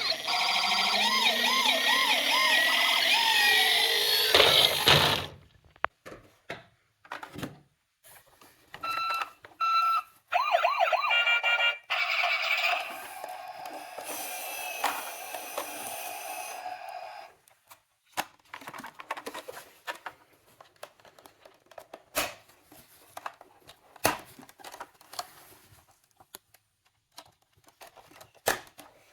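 Electronic toy sirens in ambulance, police car and fire truck minicars, several wailing together and rising and falling, which cut off sharply about five seconds in. Short siren bursts follow from about nine to seventeen seconds, then only scattered light clicks and knocks.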